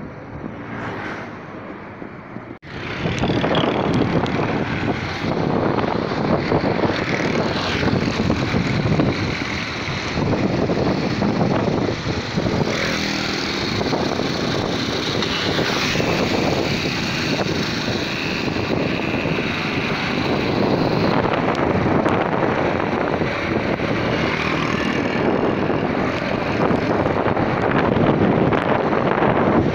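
Wind rushing hard over the microphone while riding a moped, with the small motorbike engine running underneath. The noise is quieter at first, then jumps suddenly to a loud, steady rush about two and a half seconds in.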